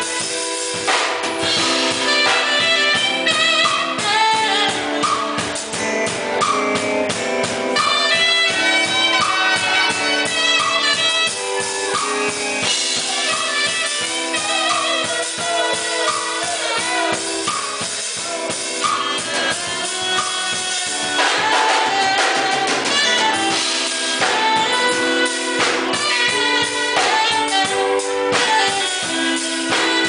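Live band playing: saxophone, trumpet and trombone over a drum kit and keyboard, with a steady beat and a repeating riff.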